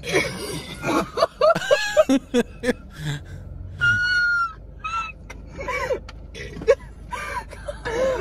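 High-pitched wordless vocal sounds from people's voices in short bursts, with one held high note about four seconds in.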